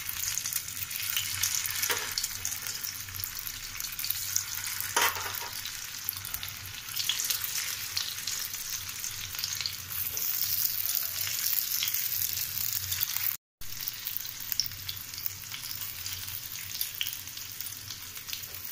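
Noodle cutlets sizzling and crackling in hot refined oil in a nonstick frying pan as they are laid in one by one, a steady high-pitched frying hiss with scattered sharper pops.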